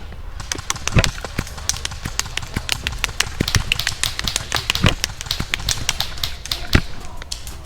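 A dense, irregular scatter of sharp clicks and snaps, with louder cracks about a second in, near five seconds and near seven seconds.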